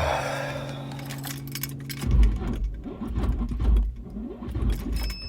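An Infiniti G35 tried on a weak, nearly dead battery: a steady electrical hum cuts out about two seconds in, then heavy uneven low thumping follows without the engine catching. A short high beep sounds near the end.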